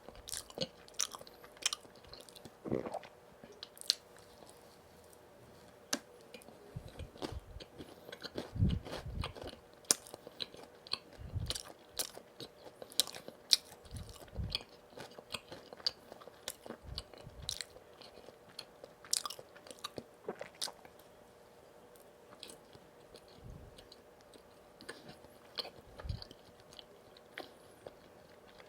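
Close-miked eating of donuts: bites and chewing with wet mouth clicks and smacks, coming irregularly, with a quieter pause of a few seconds past the middle.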